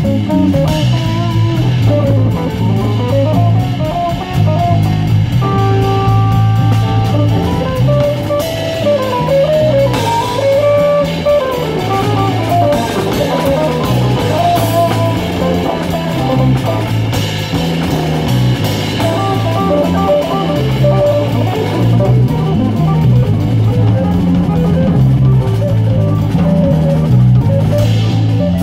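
Contemporary jazz quartet playing live: electric guitar, electric bass, piano and drum kit. A single-note melody line moves over a repeating bass figure and steady drumming.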